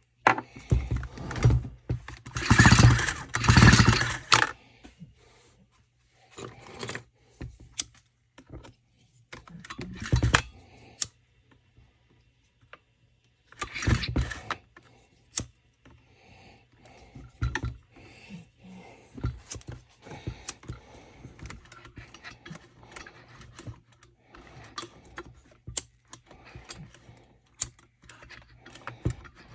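Several short bursts of rushing noise, the longest lasting about two seconds near the start, as fuel is blown out of a flooded Stihl FS 45 trimmer engine. Scattered clicks and knocks of parts and tools being handled follow.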